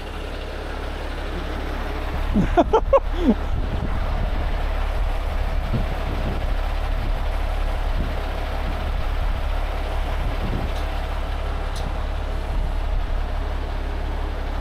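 A 75-ton rotator tow truck's diesel engine running steadily as a low rumble. A voice calls out briefly about two and a half seconds in.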